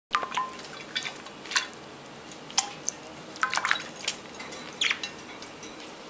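Budgies bathing: a string of short water splashes and drips mixed with brief high chirps.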